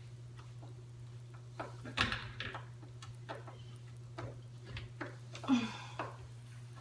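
Screwdriver driving a screw into a cabinet door hinge, giving irregular clicks and knocks of metal and wood, the loudest about two seconds in and another near five and a half seconds. The screw is going into a stripped screw hole packed with toothpicks to make it hold.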